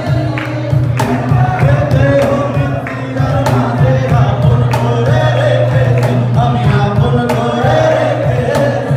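Two male voices sing a Bengali song live through a PA, accompanied by a cajón beaten by hand in a steady rhythm.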